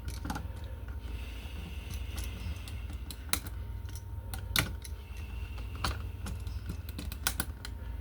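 Irregular small clicks and taps of a screwdriver and copper wire against a wall receptacle's terminal screws as the white wires are hooked on and tightened, over a steady low hum.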